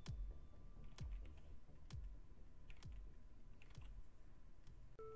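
Quiet background electronic music: a kick drum about once a second, each beat with a dropping low thud, under faint held synth notes.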